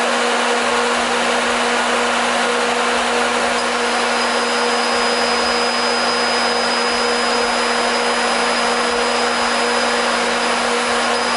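Laser cutter running while it engraves: a steady rush of its extraction fan and air assist with a constant hum. A thin high whine joins a little over three seconds in.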